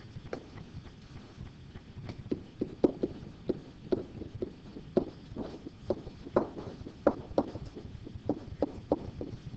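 Pen tapping and knocking on the hard surface of an interactive whiteboard as numbers and units are written: short irregular knocks, sparse for the first two seconds, then two or three a second.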